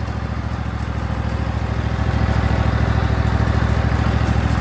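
Husqvarna LGT2654 lawn tractor's engine running steadily as the tractor drives along, with a fast, even pulse. It gets a little louder over the first two seconds, then holds.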